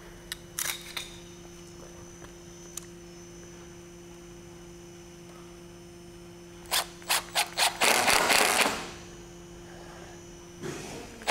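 Cordless drill driving a screw through a metal fascia bracket into a timber frame: a few short trigger blips, then a run of about a second, and another run starting near the end.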